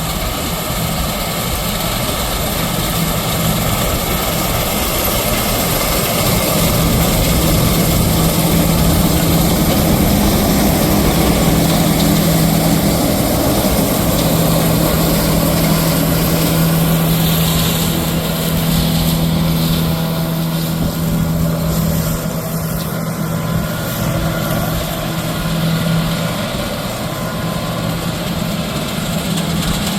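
John Deere 9750 combine running steadily while harvesting soybeans: a loud, constant engine and threshing drone with a steady low hum.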